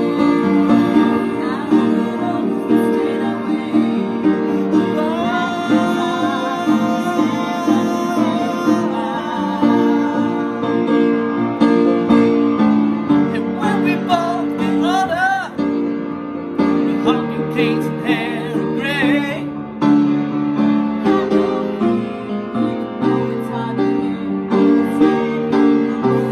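Music: a song played on keyboard and guitar, with singing in places.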